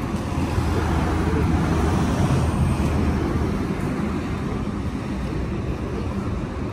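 Steady outdoor background noise with a low rumble that swells slightly about a second or two in, then eases.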